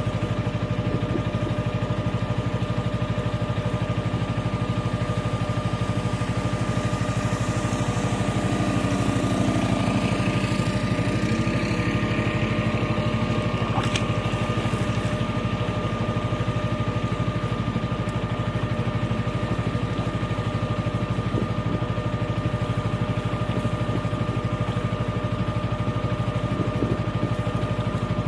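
Small boat's engine running steadily under way, an even hum with a steady whine over a low rumble.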